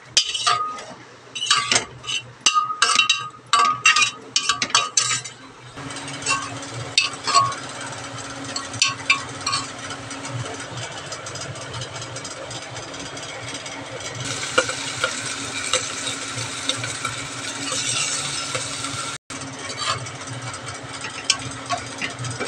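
Metal ladle clinking and scraping against an aluminium pressure cooker while stirring, a quick run of sharp ringing clinks over the first five seconds or so. After that comes a steady hiss with a low hum, broken by occasional scrapes and taps of the ladle.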